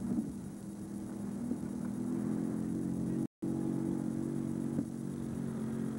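All-terrain vehicle engine running steadily, its pitch rising a little about two seconds in. The sound cuts out for an instant just past the middle.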